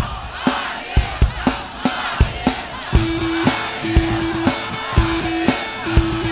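Instrumental rock intro: a kick drum beats steadily about twice a second under guitars, and a repeating held bass note comes in about three seconds in.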